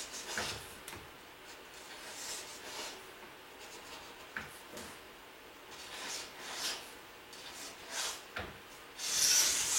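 Cardboard moving boxes being handled: scattered light rubs and scrapes, with a louder scrape near the end.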